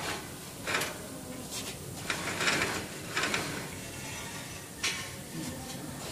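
Steel wire rope running over a pulley sheave as it is hauled, giving several short scraping rasps, the longest about two and a half seconds in.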